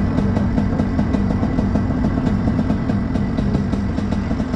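Junior Rotax kart's 125cc single-cylinder two-stroke engine running steadily at an even engine speed.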